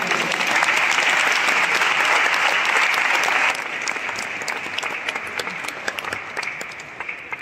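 Audience applauding, loud at first, then dropping sharply about three and a half seconds in and tapering off to scattered claps.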